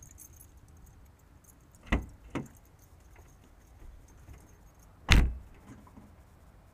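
Two sharp knocks close together about two seconds in, then a heavy thud about five seconds in: a car door being opened and slammed shut, with the impacts carried through the body to a camera mounted on the outside of the car.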